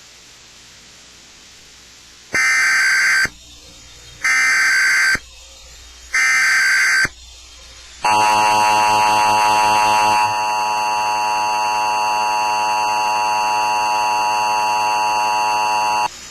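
Emergency Alert System tones: three short bursts of digital header data, about a second each, then the long steady two-tone EAS attention signal for about eight seconds, played through a television.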